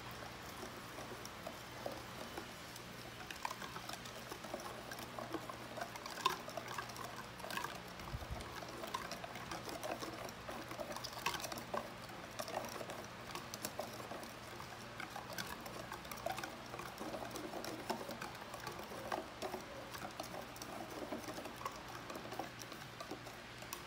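Wire whisk beating wet cornbread batter in a stainless steel bowl: a steady, faint patter of quick small clicks and wet splashes as the wires churn the batter and tap the bowl.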